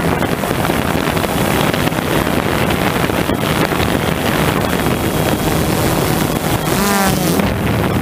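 Multirotor drone's electric motors and propellers running steadily, with wind buffeting the onboard camera's microphone. Near the end the motor pitch wavers briefly up and down.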